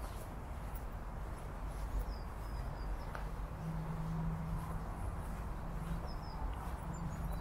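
Outdoor lakeside ambience: a steady low rumble with a few short, high bird chirps, about two seconds in and again about six seconds in. A low steady hum joins about halfway through.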